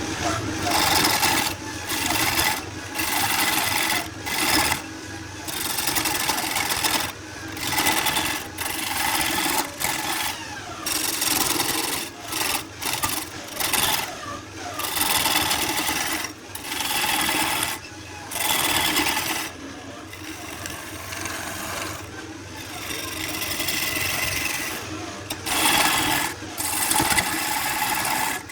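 Repeated rasping strokes on wood, roughly one a second, over a steady low hum.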